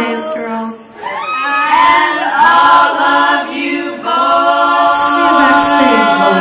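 Female vocal group singing a cappella in harmony, with long held chords in the second half.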